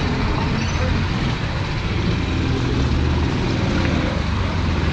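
Several Sodi GT5R 270 cc rental kart engines running at low speed in the pit lane, a steady low rumble.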